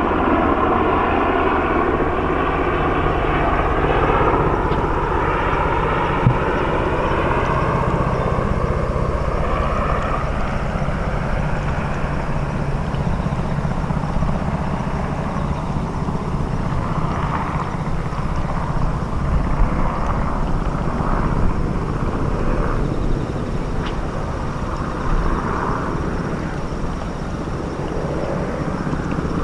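Steady engine drone with several pitched tones that fades away over about the first twelve seconds, leaving a steady low engine hum.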